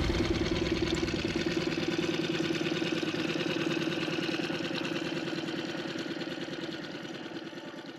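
Outboard motor on a small inflatable boat running at a steady pitch as the boat pulls away, growing gradually fainter with distance.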